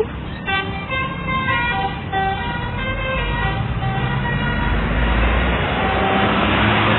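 Indonesian bus telolet horn playing a quick tune of several notes sounding together for about four seconds. Then the bus's engine and road noise grow steadily louder.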